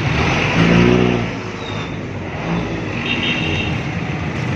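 Busy street traffic: steady engine and road noise, with one vehicle's engine coming up loudest about a second in.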